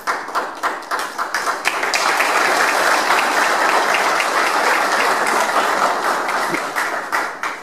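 A seated group applauding. It starts as a scatter of separate claps, builds after about two seconds into dense applause, and thins out near the end.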